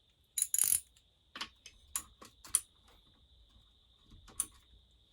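Hand socket ratchet clicking in a few short, irregular strokes as a muffler bolt is loosened.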